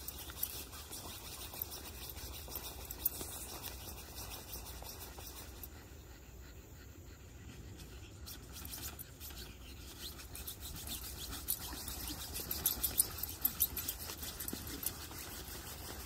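Shih Tzu puppies scrabbling on the nylon fabric of a pop-up play tent: a soft rustling with scattered light scratches and clicks that get busier a little past the middle.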